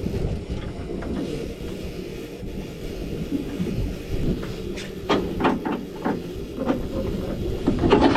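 Steady low rumble aboard a small fishing boat, with several sharp knocks in the second half and a louder clatter near the end.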